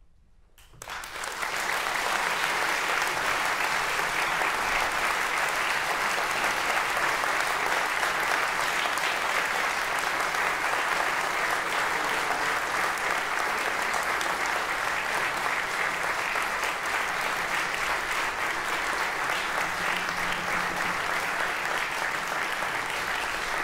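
Audience applause breaking out suddenly about a second in and continuing steadily.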